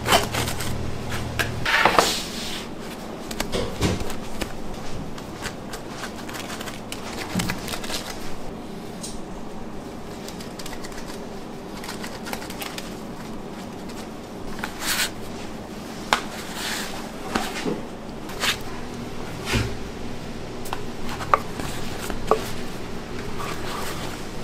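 Bakery kitchen work sounds: scattered clicks, taps and knocks of utensils and equipment being handled, over a low steady hum.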